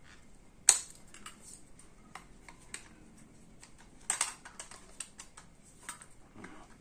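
Hard plastic clicks and small knocks of an action camera's clear waterproof case being handled, with one sharp click a little under a second in and a quick cluster of clicks around four seconds.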